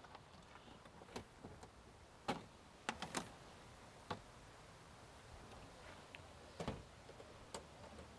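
Faint, scattered clacks and knocks of plastic cookware being lifted and set back into an aluminium storage box, with a heavier knock about two-thirds of the way through as the box's metal lid is shut.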